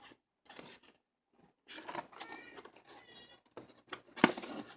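Small cardboard retail box being handled, its flaps pried and rubbed in short scraping bursts. There is a brief squeak about three seconds in and a sharp snap a little after four seconds.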